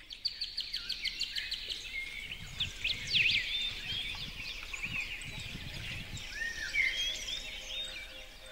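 Several songbirds singing and chirping over one another: many short, high, swooping notes, with a fast even trill in the first second or so.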